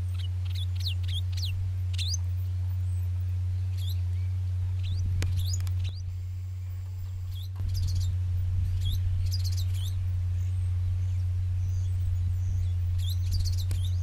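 New Holland T6.130 tractor's diesel engine running under load with a steady low drone as it pulls a Baldan 24-disc offset harrow, quieter for a moment around six seconds in. Birds chirp over it again and again.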